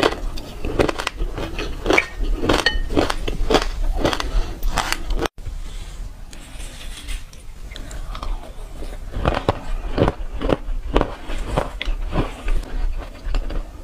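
Close-miked crunching and chewing of crunchy seeds and nuts, several sharp bites a second. The crunching stops briefly about five seconds in and then resumes.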